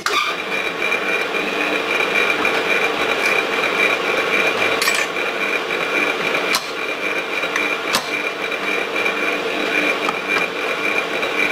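Drill press spindle running steadily with a high, even whine, turning a countersink that rough-chamfers a bolt hole in an aluminum part. A few light clicks are heard along the way.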